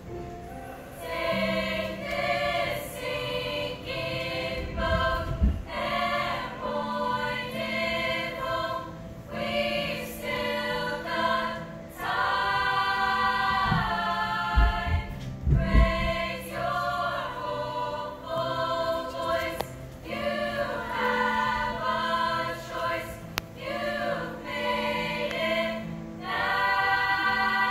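A girls' choir singing in harmony, the phrases rising and falling over a steady low note held underneath. A few short low thumps cut through, once about five seconds in and twice around fifteen seconds.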